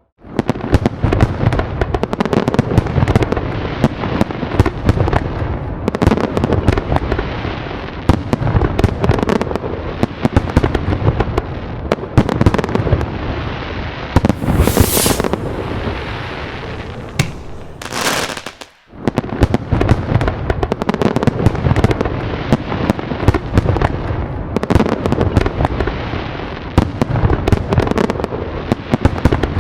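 Fireworks going off in a dense barrage: rapid bangs and crackling over deep booms, with two short hissing rushes around the middle and a momentary gap about two-thirds through.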